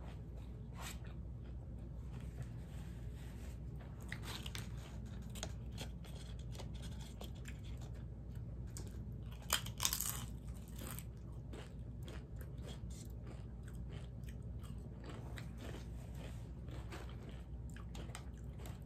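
Close-miked chewing of a crunchy ground-beef taco, a run of small crisp crunches, with a louder set of crunches about ten seconds in as another piece is bitten.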